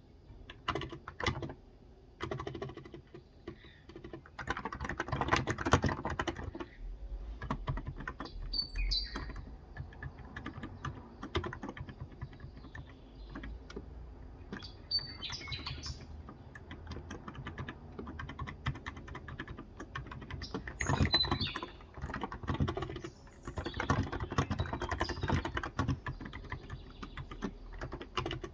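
Typing on a Cox Endeavour electrostatic capacitive (35 g) tenkeyless keyboard, in quick runs of keystrokes with slower patches between. A bird chirps a few times, about 9, 15 and 21 seconds in.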